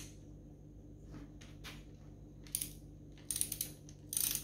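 Ratchet-type torque wrench working the connecting-rod cap nuts of a Holden 253 V8, torquing them up to 35 ft-lb. It makes short bursts of metallic ratchet clicks that come closer together in the second half.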